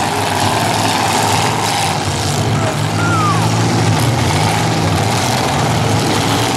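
Demolition derby cars' engines running together in a loud, steady din.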